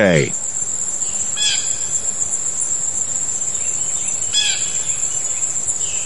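Blue jay giving two short calls, about a second and a half in and again near four and a half seconds, over a steady high-pitched insect drone.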